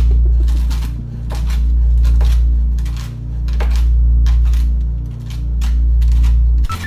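A knife chopping nuts on a cutting board: irregular sharp clicks, one or two a second. They sit over a loud low hum that swells and fades about every two seconds.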